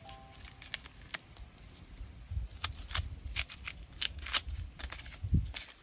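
A small knife cutting into an onion held in the hand: a string of irregular, sharp, crisp cuts, several a second at their busiest, over a low rumble.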